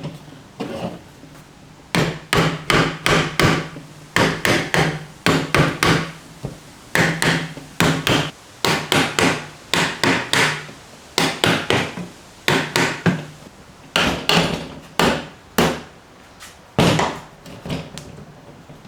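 Hammer blows on wooden furniture legs, knocking loose, wobbly glued joints apart: sharp knocks in quick clusters of two to four with short pauses, beginning about two seconds in and stopping near the end.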